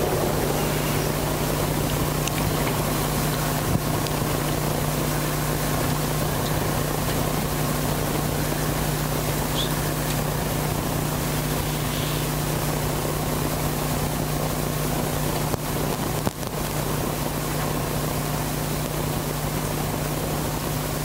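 Steady, loud static hiss with a constant low electrical hum, from the microphone or sound-system feed. It drops out for a moment about two-thirds of the way through.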